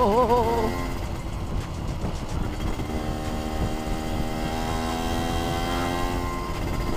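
Suzuki Satria 120 single-cylinder two-stroke engine running under way, heard under heavy wind rush on the rider's helmet microphone; from about three seconds in the engine note climbs steadily as the bike accelerates. Right at the start there is a brief wavering tone.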